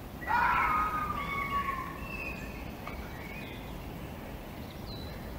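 Fox calling: one loud, drawn-out, wavering call starting just after the beginning and lasting over a second, then a few fainter, shorter calls, over a steady background hiss.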